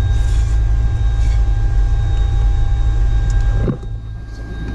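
Car cabin noise while driving: a steady low rumble of engine and tyres on the road. It drops in level and changes character near the end.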